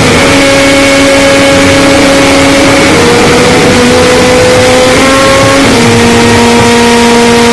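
Harsh noise music: a constant, distorted wall of noise pushed to full loudness, with droning tones that jump to new pitches several times.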